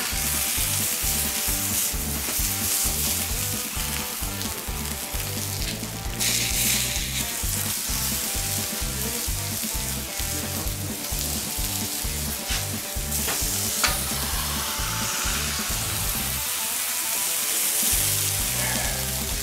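Burger patties, zucchini and onion slices sizzling on a hot, oiled steel fire plate, with background music with a steady bass beat underneath.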